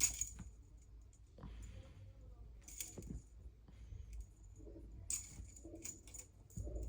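Small metallic jingles: a few short, separate rattles with a high ringing tone, at the start, about three seconds in, and twice near the end.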